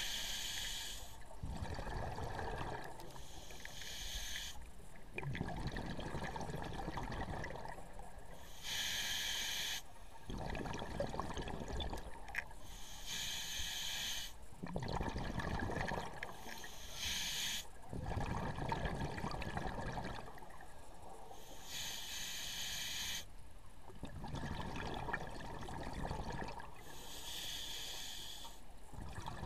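Scuba regulator breathing underwater: a sharp hiss through the demand valve on each inhale, alternating with a rumbling gurgle of exhaled bubbles, repeating every few seconds.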